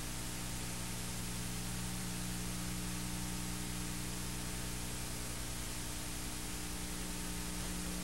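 Steady hiss with a low, even electrical hum underneath: the background noise of an old analogue videotape soundtrack.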